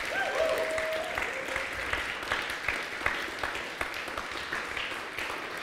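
Audience applauding at the end of a talk, a steady patter of many hands clapping.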